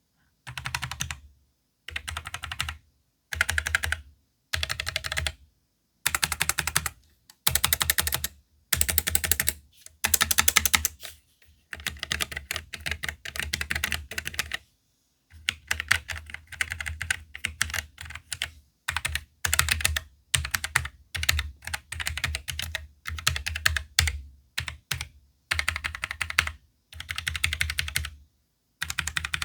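Typing on a Royal Kludge RK925 low-profile mechanical keyboard with Gateron brown switches: fast runs of keystroke clicks in bursts, with short pauses between them.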